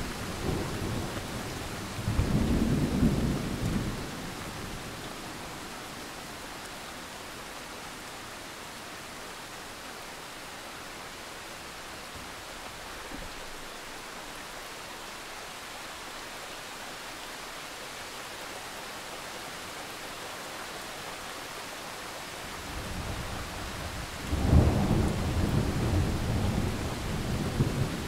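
Steady rain with rolling thunder: one rumble about two seconds in and a louder, longer one building near the end.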